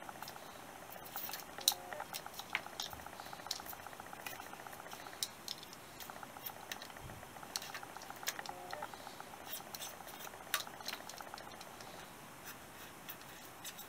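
Craft knife with an Alpha blade trimming 2 mm neoprene foam along the edge of a metal heater blend-door flap: faint scratching and irregular small clicks as the blade drags and snicks through the foam.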